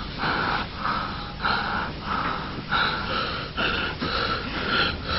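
A man breathing hard in rapid, noisy gasps, about two a second, growing sharper about halfway through.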